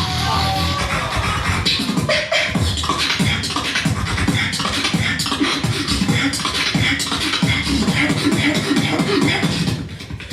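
Solo beatboxing: a rapid stream of mouth-made drum and bass sounds in a steady rhythm, heavy in the low bass. It drops in loudness briefly near the end.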